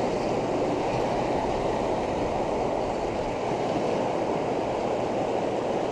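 Water rushing steadily through a river spillway, an even, constant rush.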